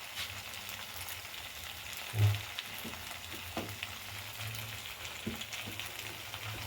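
Chicken chilli frying and sizzling in a pan with a steady fine crackle, a brief louder thump about two seconds in and a few faint knocks, as of a utensil against the pan.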